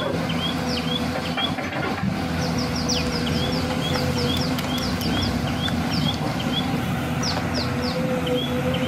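Small birds chirping rapidly and repeatedly, in quick falling notes and short upturned chirps, over a steady mechanical hum with a held tone.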